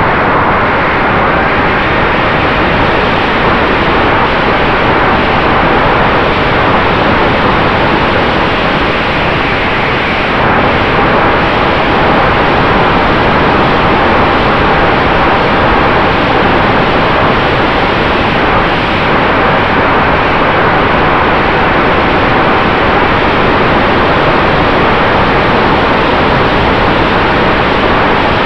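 Wind rushing over the onboard camera's microphone on a Ritewing Mini Drak FPV flying wing in fast flight: a loud, steady noise with a faint steady hum under it.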